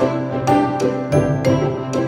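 Background music with a steady, bouncy beat.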